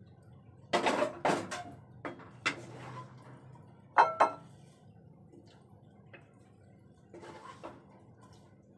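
Kitchenware clattering as a cooking pan is set down and food is moved onto a plate: a cluster of knocks about a second in, two sharp ringing clinks about four seconds in, and a softer clatter near the end.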